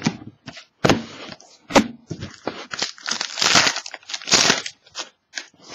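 The wrapper of a 2013-14 Upper Deck SPX hockey card pack is torn open and crinkled by hand: a run of sharp crackles and rips, loudest in the second half.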